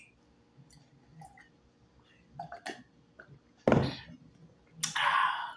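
A person drinking water and eating: faint mouth clicks and swallows, then a short, loud, deep gulp or burp-like sound about four seconds in, and a breathy exhale near the end.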